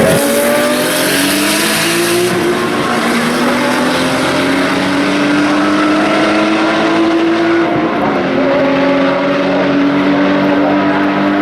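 Historic racing car engine accelerating hard at full throttle, its pitch climbing steadily, then dropping about eight seconds in as it shifts up and climbing again.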